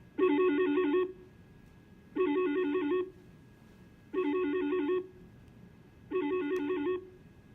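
Wildix phone playing a ringtone: four short warbling rings, each just under a second, about two seconds apart. It signals that a colleague on one of its BLF keys is receiving an incoming call.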